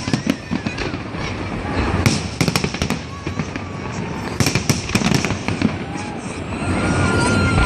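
Fireworks display: clusters of sharp crackling reports over low booms.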